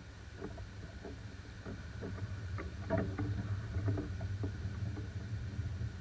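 Wind buffeting the microphone as a steady low rumble, with a run of short grunts from a herd of feeding wild boars, thickest about three seconds in.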